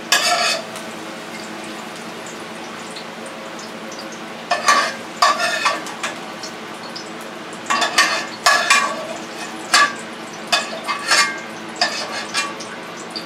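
Metal spoon scraping across a frying pan while scooping out sautéed onions: short scrapes come in clusters, with a steady low sizzle from the hot pan just taken off the flame.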